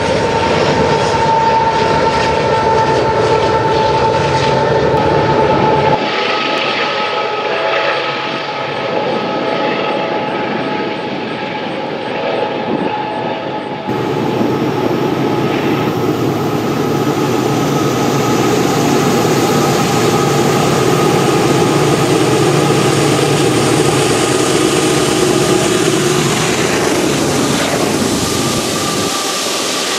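Union Pacific coal trains rolling past on the climb: a steady rumble of the coal cars' wheels on the rails, with a thin, steady wheel squeal in the first six seconds. The sound changes abruptly about six and fourteen seconds in, where one passing train gives way to another.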